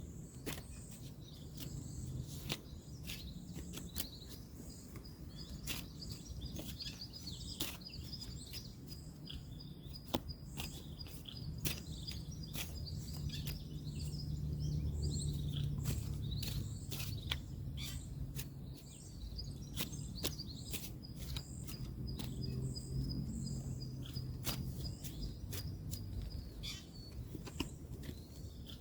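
Playing cards being handled and laid down outdoors, a run of sharp, irregular clicks and snaps, over birds chirping and a low steady rumble of distant road traffic.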